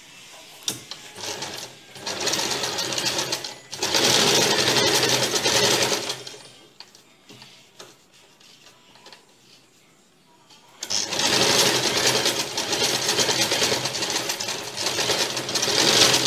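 Electric household sewing machine stitching a blouse sleeve, running in two spells: it starts about two seconds in, picks up speed, and stops about six seconds in, then after a pause of about five seconds runs again steadily.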